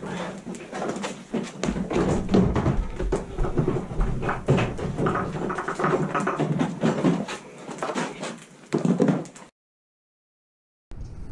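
Plastic hood and body panels of a Ski-Doo Rev XM snowmobile being unclipped and lifted off by hand: a busy run of knocks, clicks and rustling clatter. Near the end the sound cuts off abruptly to a second or so of silence.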